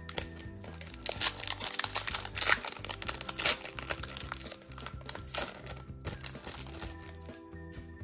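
Foil Pokémon booster-pack wrapper crinkling as it is torn open and unwrapped by hand, loudest from about a second in until about six seconds in, over background music with a steady bass line.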